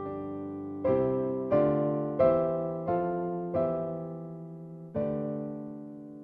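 Background piano music: slow chords struck every half second or so, with a longer held chord that fades out near the end.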